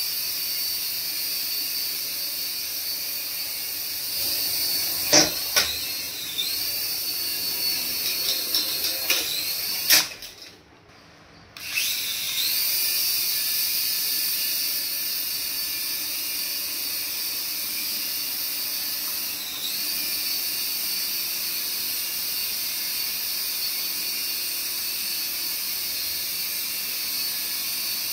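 Toy coaxial RC helicopter's small electric motors and rotors whining steadily at a high pitch. The whine rises in pitch a few times. A few sharp knocks come around five and ten seconds in, and the whine cuts out for over a second just after ten seconds before starting again.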